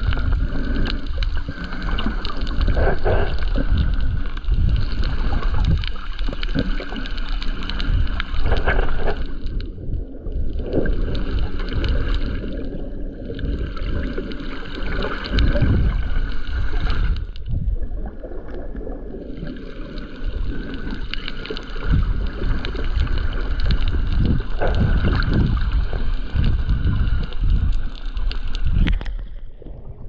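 Muffled underwater noise picked up by a submerged action camera while snorkeling: a steady low rumble with irregular gurgling surges of water moving past the housing.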